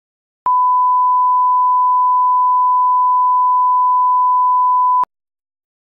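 Steady 1 kHz test tone of the kind played with SMPTE colour bars: one unbroken beep lasting about four and a half seconds, starting and cutting off abruptly with a faint click at each end.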